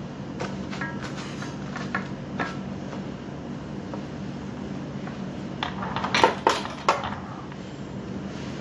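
Light clinks and knocks of kitchen utensils against a stainless steel bowl, with a cluster of louder clatters about six seconds in, over a steady low hum.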